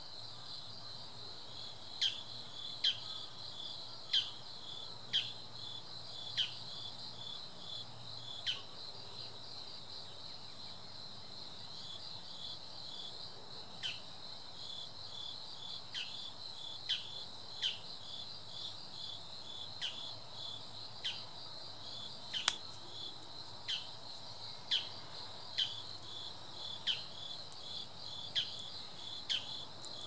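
Bull-headed shrike giving its high-pitched takanaki territorial call: a series of sharp, falling notes about one a second, pausing for a few seconds near the middle, over a steady chorus of insects.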